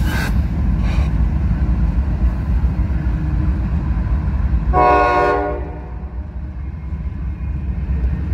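Norfolk Southern diesel locomotives and intermodal train passing with a steady low rumble, with sharp clanks in the first second. About five seconds in, a short locomotive horn blast lasting under a second, after which the rumble eases a little.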